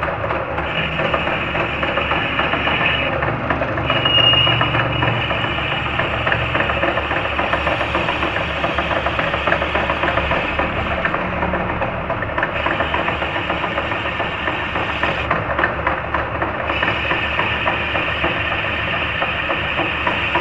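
Old lathe running with a motorcycle wheel hub spinning in its chuck while a boring tool cuts inside the hub's bearing bore. A steady mechanical clatter with fast, even ticking underneath.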